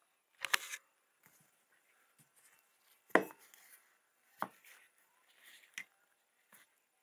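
Steel adjustable spade bit being handled and turned over, knocking against the work surface about five times; the loudest knock comes about three seconds in. Near the end a screwdriver tip clicks against the bit's slotted screw.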